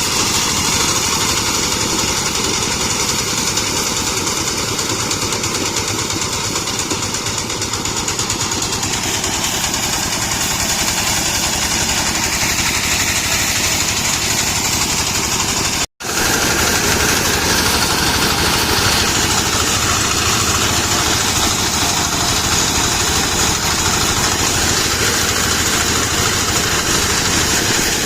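Small engine-driven rice threshing machine running steadily under load, with an even, dense mechanical din. There is a brief cut-out about halfway through.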